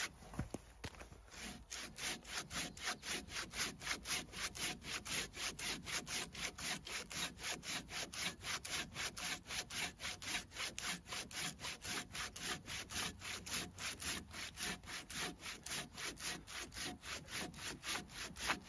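Corona 18-inch RazorTOOTH pruning saw cutting through an 8-inch log of green bull pine (ponderosa pine): fast, even push-pull strokes, about four to five rasps a second, with a brief pause about a second in.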